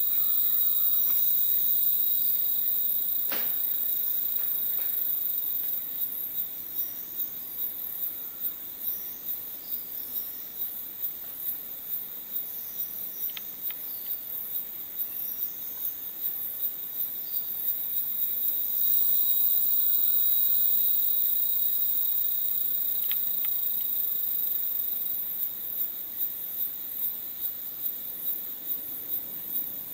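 Rainforest insect chorus: continuous high-pitched shrilling, with a pulsing of about two beats a second. A lower shrill band is loudest in the first few seconds and swells again about two-thirds of the way in. A few faint sharp clicks sound over it.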